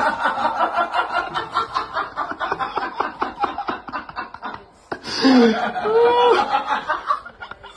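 Person laughing in quick, rhythmic bursts for about four and a half seconds. After a short break, a pitched voice or call with rising and falling tones follows from about five seconds in.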